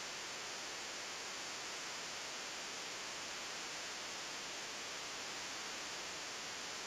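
Steady, even hiss with no other sound in it: recording noise.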